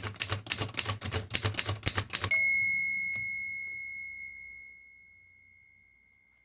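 Manual typewriter, a Mercedes Modell 4, typed on fast: a quick run of key and typebar strikes for a little over two seconds. Then the margin bell rings once and fades slowly over several seconds.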